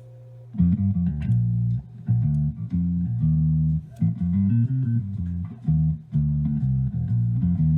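Music: a bass guitar riff with a steady beat comes in about half a second in.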